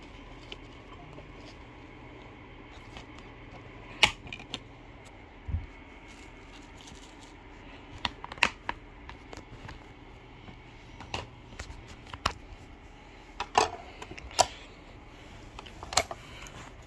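Scattered sharp plastic clicks and knocks, about ten spread over a dozen seconds, from a DVD disc and its plastic keep case being handled, over a faint steady low hum.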